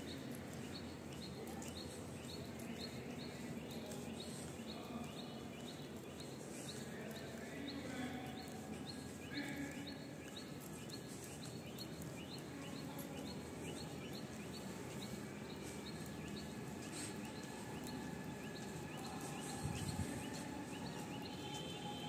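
Outdoor ambience: a steady background hiss with a regular run of short high chirps, about two a second, throughout. A brief low bump comes near the end.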